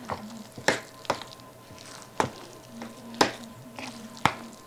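A spoon stirring thick cookie dough in a glass mixing bowl, with a sharp knock of the spoon against the bowl about once a second and squishing and scraping in between.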